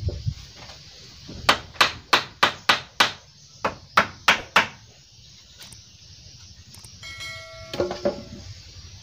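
Hammer blows on bamboo framing: about ten sharp strikes at about three a second, a run of six and then, after a short pause, a run of four. Near the end comes a short chiming sound effect with a few clicks.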